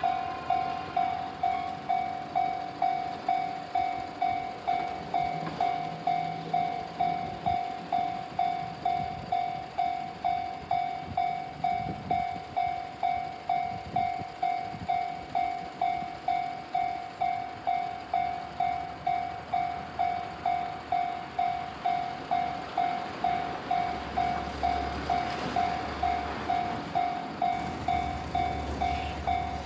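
A Japanese level-crossing warning bell ringing in an even, unchanging rhythm of just under two strokes a second. From about three-quarters of the way in, a train's running noise and low rumble rise beneath it as the train approaches the crossing.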